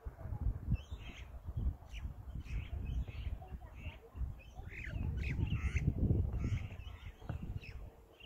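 Birds calling and chirping, short high notes and a few sliding calls scattered throughout, over an uneven low rumble.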